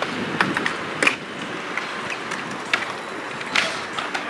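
Inline skate wheels rolling on concrete with a steady hiss, broken by several sharp clacks of skates striking the concrete.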